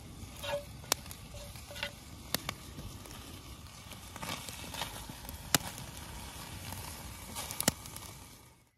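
Campfire crackling, with a steady hiss of burning and several sharp pops from the wood. The sound cuts off abruptly just before the end.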